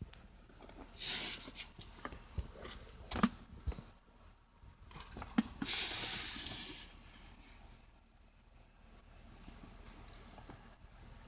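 Handling noises: scattered clicks and light knocks, with two short spells of rustling hiss, one about a second in and a longer one about halfway.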